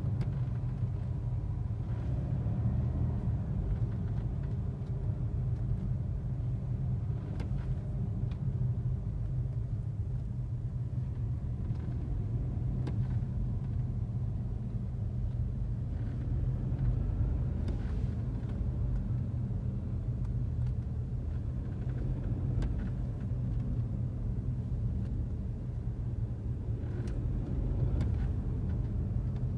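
Steady low road-and-engine rumble of a BMW F30 330i under way, with short, faint high-pitched squeaks every few seconds from the right front suspension. The owner suspects worn control-arm bushings or a worn sway bar link.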